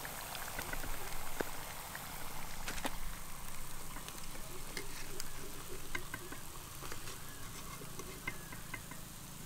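Hot oil sizzling steadily as sago-and-potato vadas fry in a kadai over a wood fire, with scattered small clicks and pops. A few faint high chirps come in the second half.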